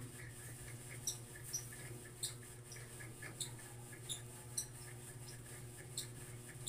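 Quiet room tone with a steady low hum and scattered short, high-pitched squeaks, about one every second.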